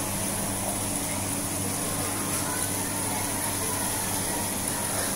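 Water pouring and splashing steadily into supermarket live-fish tanks, with a low steady hum underneath.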